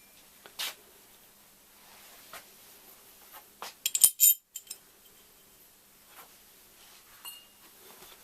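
Stainless steel pipe fittings clinking and knocking as they are handled and set down on metal. There are scattered light clinks, with a loud cluster of sharp ringing clinks about four seconds in.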